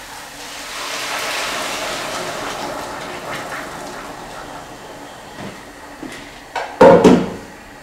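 Hot water poured into a hot pot of frying meat and potatoes, hissing and bubbling up loudest in the first couple of seconds and then dying down. A loud clunk near the end.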